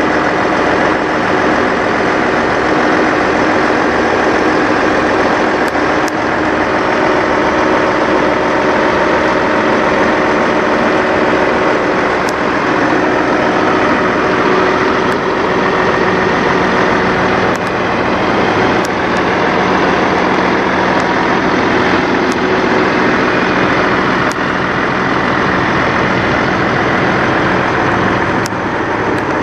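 Peterbilt semi tractor's diesel engine idling, loud and steady throughout.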